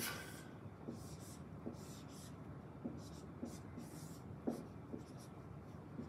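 Dry-erase marker writing on a whiteboard, faint, in a series of short strokes as a diagram is drawn.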